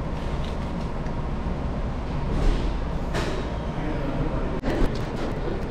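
Steady outdoor background noise with a low rumble, like street traffic, broken by a brief sudden drop about four and a half seconds in.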